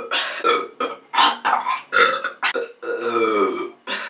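A woman burping repeatedly, brought on by gulping a large bottle of carbonated soda: a quick string of short burps, then one longer, drawn-out burp near the end.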